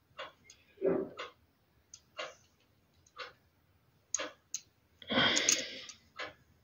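Scattered light clicks and taps as a small 1:60 scale model car is handled and turned over in the fingers, with a soft hiss lasting about a second near the end.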